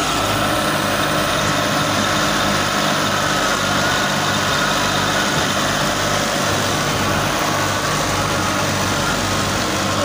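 Super National wheat thresher running steadily, driven by a tractor engine through its shaft: a low engine drone under an even, dense rush from the threshing machinery.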